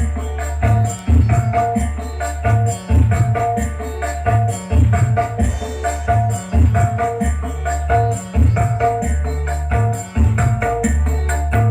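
Music with a heavy, pulsing bass and a steady beat, with hand drums and rattling percussion, played over a sound system for a sound check.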